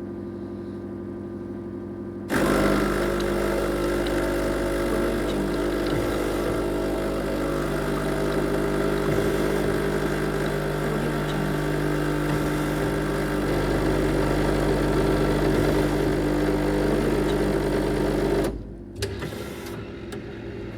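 Automatic tea machine humming, then starting up about two seconds in and running loudly and steadily: a motor hum under a rushing noise. It cuts off suddenly after about sixteen seconds, leaving a quieter hum with a few clicks.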